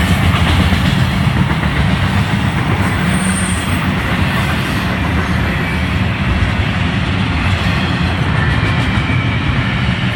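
Double-stack container well cars of an intermodal freight train rolling past at speed: a steady, loud, low rumble of steel wheels on the rail.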